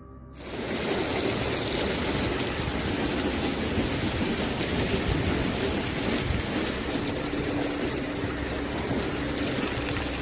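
Torrential wind-driven rain in a severe storm: a loud, steady rushing noise of rain and wind that cuts in suddenly in the first half-second. A faint steady hum is also heard from about two-thirds of the way through.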